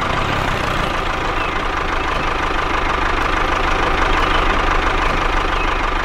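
A small motor of a homemade model tractor running steadily, with a fast, even rattle.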